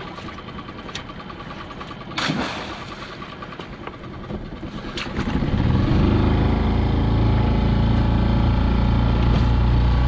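Small boat's outboard motor ticking over quietly, then throttled up about five and a half seconds in and running louder and steady as the boat gets under way. A brief rush of noise comes about two seconds in.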